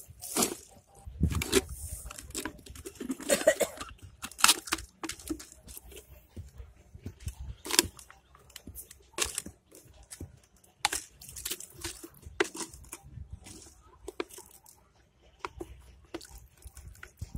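Thin plastic bottle trap crinkling and crackling in the hands as it is handled and pulled apart, in irregular sharp crackles. A dull thump comes about a second in.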